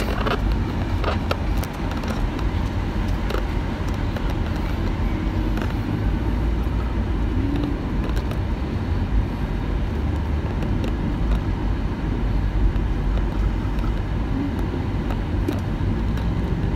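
A steady low rumble with faint scattered clicks and brief, faint voice sounds.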